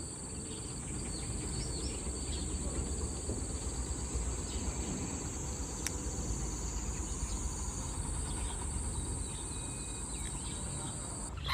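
Steady high-pitched insect chorus, with a low rumble underneath and a few faint short chirps.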